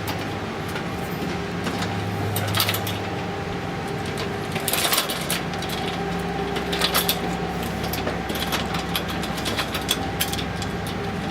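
Irregular knocks and clanks of someone climbing a ladder, against a steady mechanical hum.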